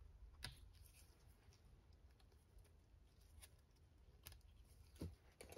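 Near silence with a few faint, scattered clicks of a metal pick prying at rubber oil seals in an aluminium supercharger housing.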